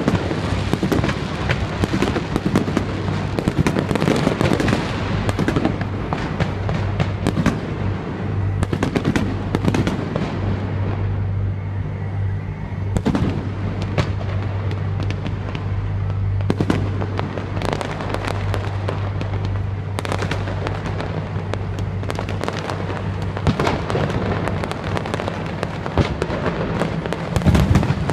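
A fireworks display: shells bursting one after another in quick succession with crackling, throughout.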